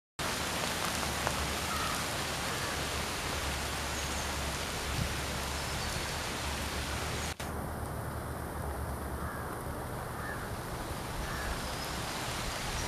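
Steady rain falling on dense foliage, an even hiss, with a short dropout about seven seconds in.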